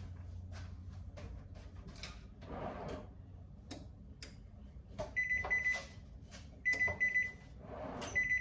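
Oven timer alarm beeping: groups of short, rapid high-pitched beeps repeating about every second and a half, starting about five seconds in, signalling that the set cooking time is up. Before it, a few light clicks and knocks.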